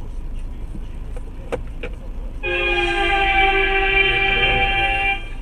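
Car horn held in one long steady blast of nearly three seconds, starting about two and a half seconds in, over the low rumble of traffic and engine noise.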